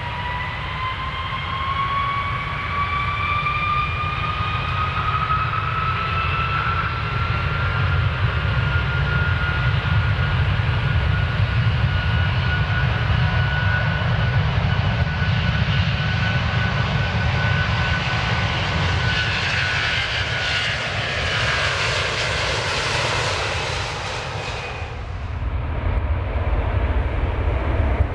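Airplane taking off: engines spool up with a whine rising in pitch over a deep rumble, building to a loud rushing noise that cuts off suddenly about three seconds before the end, leaving the low rumble.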